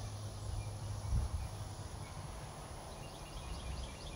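Outdoor ambience with a steady low rumble and a single thump about a second in. Near the end comes a quick run of short, high chirps from a small animal.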